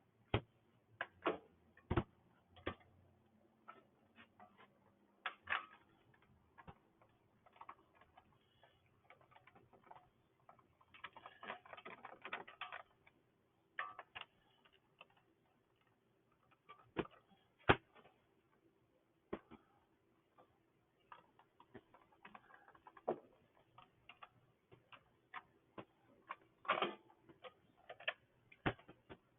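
Faint, irregular clicks and taps of hand tools and small metal parts being handled as bolts are lined up and started through a small engine's carburetor and air-filter assembly. The sharpest click comes about eighteen seconds in.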